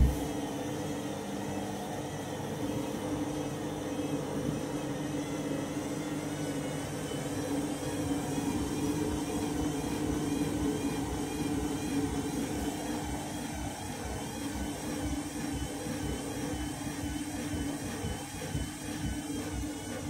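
Candy front-loading washing machine spinning a load of bathrobes: a steady motor whir with a low hum.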